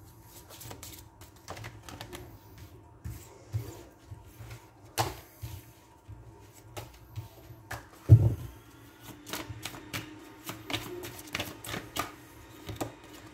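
Oracle cards being shuffled by hand over a cloth-covered table: a run of irregular quick card clicks and flicks, with one louder thump about eight seconds in as the cards are knocked or set down.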